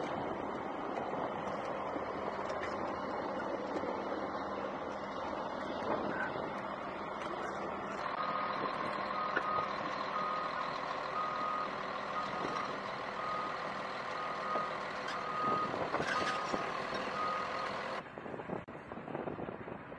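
Heavy vehicle's engine running, with a reversing alarm beeping at a steady pace, a little faster than once a second. The beeping starts partway through and stops abruptly a couple of seconds before the end.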